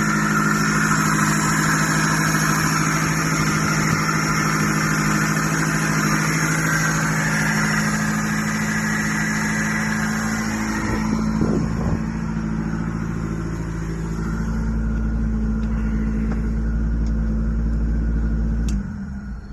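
Twin-turbo Toyota 4E-FTE four-cylinder running steadily just after its first start, with a brief rise in pitch about eleven seconds in; the engine is shut off near the end.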